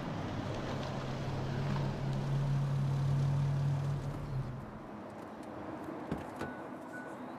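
A car's engine running with a steady low hum over road noise, fading away about four and a half seconds in.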